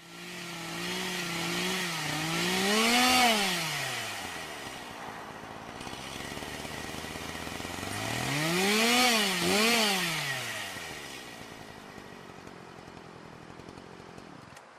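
Chainsaw engine revving: it runs at a steady pitch, is revved up once and drops back, then is revved twice in quick succession, and dies away toward the end.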